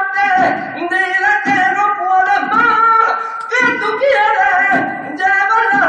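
Flamenco-style singing: one voice holding long, wavering, ornamented notes over instrumental accompaniment.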